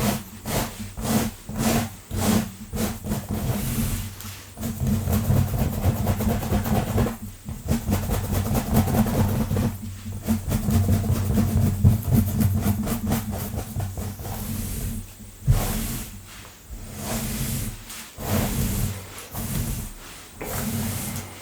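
Long nails scratching fast and hard through hair and across a scalp close to the microphone: quick repeated raspy strokes, several a second, over a low rumble, with a few short pauses.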